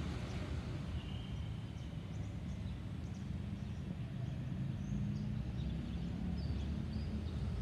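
Small birds chirping in short, scattered calls over a steady low rumble.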